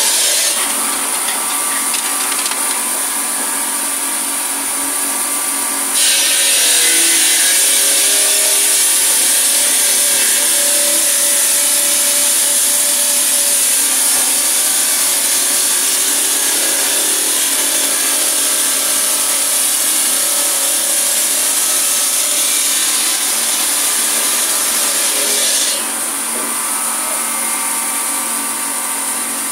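Water-cooled circular saw cutting marble: a steady high-pitched whine over a harsh grinding hiss. The sound grows louder about six seconds in and eases a few seconds before the end.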